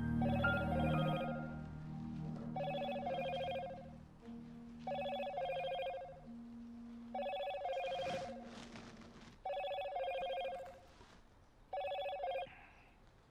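Mobile phone ringtone ringing six times, a little over two seconds apart, each ring a short two-part electronic trill.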